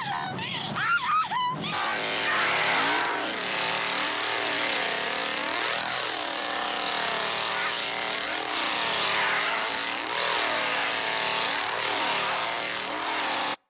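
A woman's shrill, hysterical screaming laughter for the first second or two. Then a chainsaw runs and is revved up and down over and over, and cuts off suddenly near the end.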